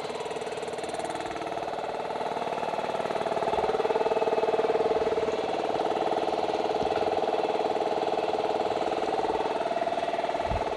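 150-litre air compressor's electric motor and oil-lubricated pump running steadily to build tank pressure back up after air was let out, getting a little louder a few seconds in.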